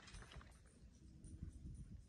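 Near silence with a faint low rumble.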